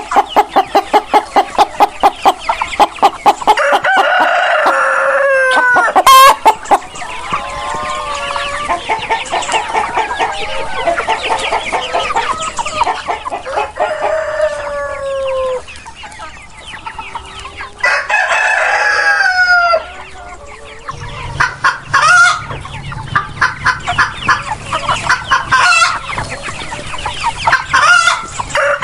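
Chickens clucking, starting with a fast run of clucks at about four a second, while roosters crow several times over the top.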